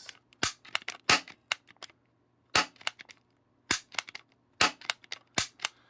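A Police .45 toy cap pistol firing a ring of 8-shot plastic caps, about six sharp cap bangs at uneven intervals with lighter clicks between them. The repaired gun is advancing the ring from cap to cap and firing again.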